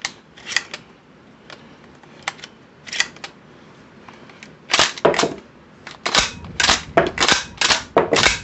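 12-gauge pump-action shotgun (Citadel PAT) being racked by hand: a few light clicks at first, then from about five seconds in a rapid run of sharp metallic clacks from the slide and bolt as unfired shells are ejected one after another. The shells come out cleanly in this test of its sticky chamber.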